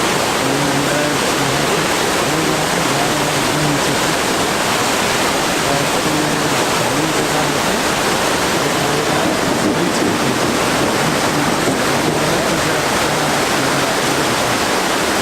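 Naga Falls, a mountain waterfall, sending up a steady, loud rush of falling water, with gusts of wind buffeting the microphone.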